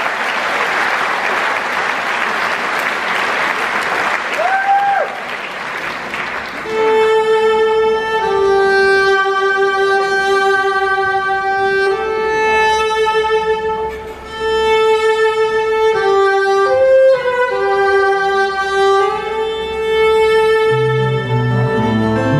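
Audience applauding, then a solo violin comes in about six seconds in, playing a slow melody of long held notes. An acoustic guitar joins with low notes near the end.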